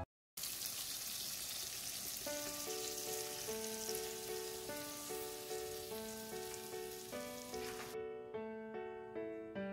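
Pork and kimchi stir-fry sizzling in a hot pan, a steady hiss that stops abruptly about eight seconds in. Light piano background music comes in about two seconds in and carries on after the sizzle ends.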